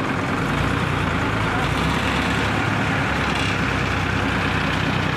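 Heavy diesel engine of a mobile crane running steadily as it holds a lifted rebar mesh, with a steady low hum.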